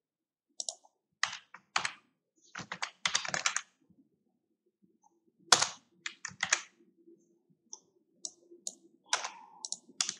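Computer keyboard keys tapped in irregular clusters of short clicks while code is typed and pasted, with a quick run of keystrokes about three seconds in.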